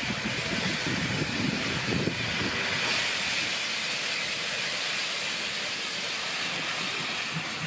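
Class 52 steam locomotive 52 8177-9 venting steam from its cylinder drain cocks, a steady loud hiss, as it rolls slowly past.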